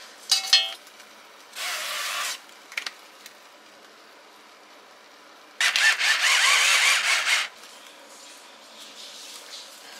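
Metal tongs clink and ring against a cast-iron roasting pot as a whole chicken is handled. Two short hissing bursts follow, the longer one about six seconds in.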